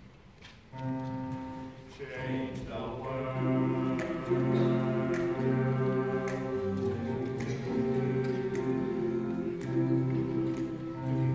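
Teenage boys' vocal ensemble singing a cappella in sustained, shifting chords, starting about a second in.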